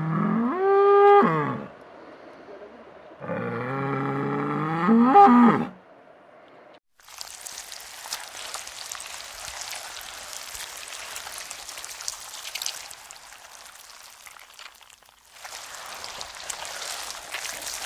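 A cow mooing twice, each long call rising in pitch toward its end. After that comes a steady rushing hiss that dips briefly and then resumes.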